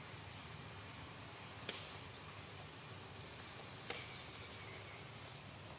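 Faint outdoor forest-floor ambience: a steady low background noise with two sharp clicks about two seconds apart and a couple of faint short high chirps.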